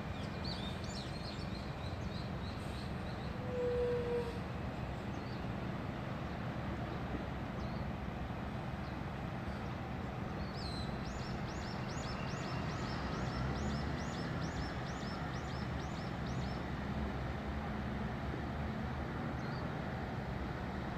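Seaside ambience: a steady wash of sea waves over a low hum, with a bird calling in quick repeated chirps, briefly near the start and again for about five seconds in the middle. A short single tone sounds about four seconds in.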